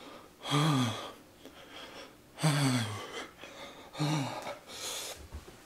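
A man's pained, voiced gasping exhalations, three strong 'haah' breaths, each falling in pitch, with breathy panting between them, from the burning heat of a super-hot chili chip in his mouth.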